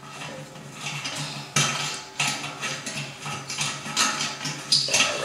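Threaded stainless steel fitting being screwed by hand onto a stainless brew kettle's fittings: irregular metallic clicks and scrapes as the threads are turned tight.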